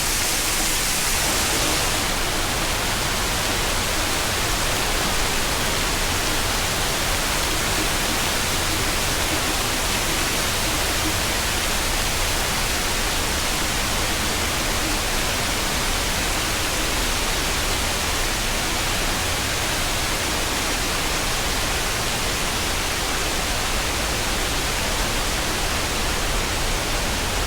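Steady, even rushing noise, loud and unbroken, whose high hiss eases slightly about two seconds in.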